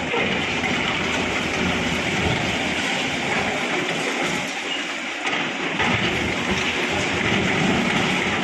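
Heavy demolition machinery working: a continuous, fairly loud rumbling clatter with no let-up.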